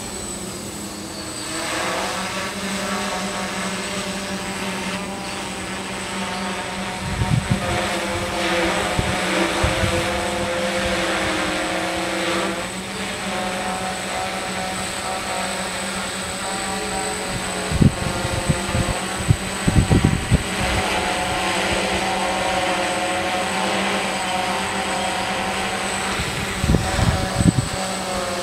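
Six electric motors and propellers of a DJI hexacopter hovering overhead: a steady multi-toned whine whose pitch wavers up and down as the motors adjust. A few brief low rumbles of wind hit the microphone.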